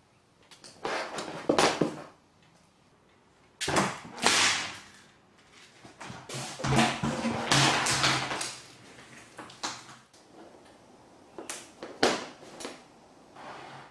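Thumps, scuffs and rustling of cats jumping into and scrambling inside cloth laundry hampers and a tall plastic bin, heard in several short, separate bursts.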